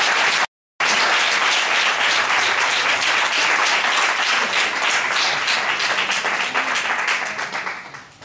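Audience applauding: a dense run of clapping that thins and fades out near the end, broken by a brief dead gap in the sound about half a second in.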